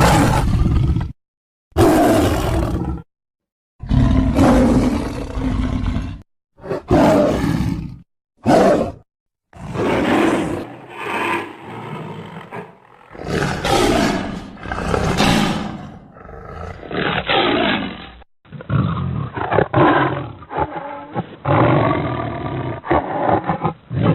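A run of sabre-toothed cat (Smilodon) roars and snarls from a creature sound-effects set, played one after another: short separate calls with silent gaps at first, then longer, more continuous growling. From about 18 s on the calls sound duller, with the treble cut off.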